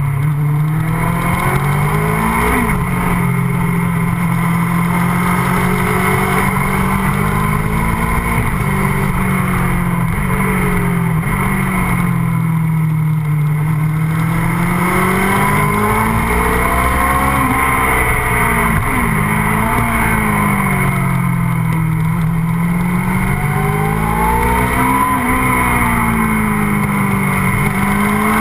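MV Agusta F4 sport bike's inline-four engine heard onboard. Its note rises and falls slowly through the bends, with a few short, sharp rev blips, over steady wind rush.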